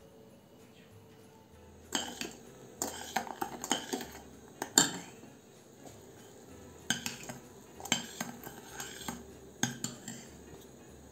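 A metal spoon stirring melted butter, sugar and honey in a stainless steel saucepan, clinking and scraping against the pan in irregular strokes. The strokes come in two spells, one from about two to five seconds in and another from about seven to ten seconds in.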